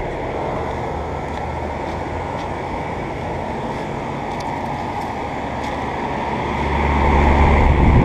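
Outdoor central air conditioner condensing units running: a steady rush of condenser fan air over a low electrical hum from the compressors. The low hum grows markedly louder about six and a half seconds in.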